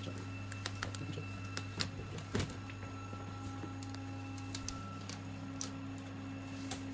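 Steady low hum from a number-plate foil-blackening machine, with scattered light clicks and knocks as the metal licence plates are positioned on its bed. There are two sharper knocks about two seconds in.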